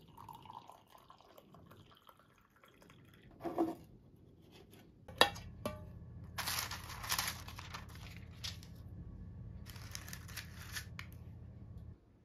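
Tea pouring from a teapot into a mug. About five seconds in there is a sharp click, and after it come two spells of rustling and crinkling over a low steady hum.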